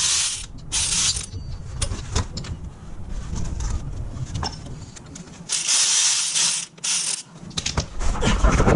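Air-powered ratchet or similar air tool run in four short bursts of hiss, two near the start and two later, loosening bolts on the Hilux transfer case, amid metallic clinks and knocks of tools and parts.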